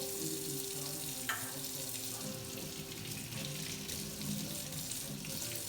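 Water running steadily from a tap as humidifier parts are rinsed, with a light click about a second in.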